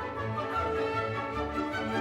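Background orchestral music with strings and a steady low beat.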